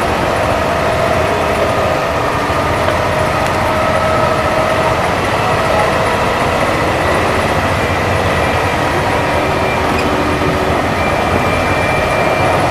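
Inboard diesel engine of a wooden abra water taxi running steadily under way, heard from on board: a loud, even rumble with a faint whine that drifts a little in pitch.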